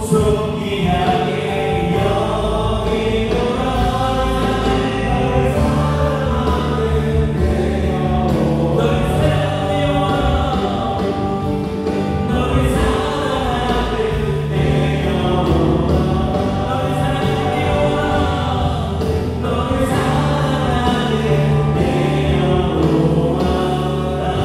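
Live worship band playing a contemporary praise song: electric guitar, bass guitar, Korg Triton and Yamaha Montage keyboards and drums, with voices singing along.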